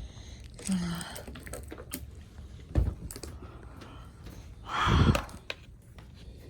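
Handling noise: scattered clicks and taps of objects being handled, a thump near the middle and a louder rustle about five seconds in.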